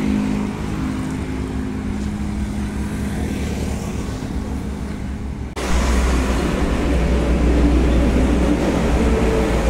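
Roadside traffic: a vehicle engine runs steadily. About halfway through, the sound changes abruptly to a louder, deeper rumble of road traffic.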